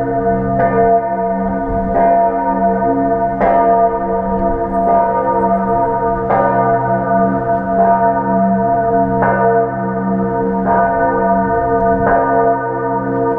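Church bells ringing, a new stroke about every second and a half, each stroke ringing on under the next.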